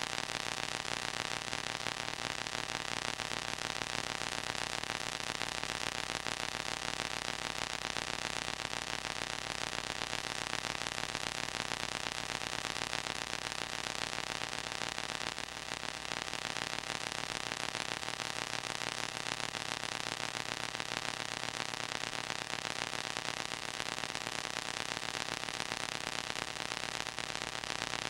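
Steady hiss with a low hum and faint steady tones under it, unchanging throughout: the background noise of a transfer of a silent home movie, with no sound from the scene itself.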